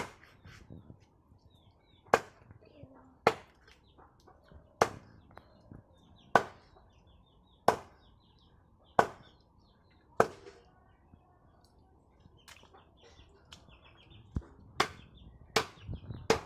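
Knife chopping, one sharp single chop about every second and a half, then a few quicker chops near the end.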